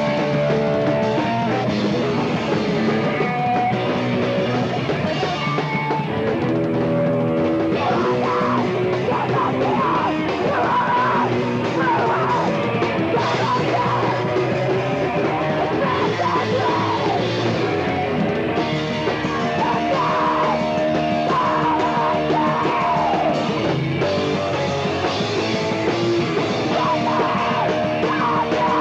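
Punk band playing live, loud and steady, with guitars and drums; a yelled vocal comes in about eight seconds in and returns in stretches.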